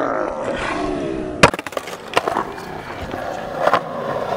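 Skateboard wheels rolling on concrete, with one sharp, loud clack about a second and a half in and lighter knocks of the board later on.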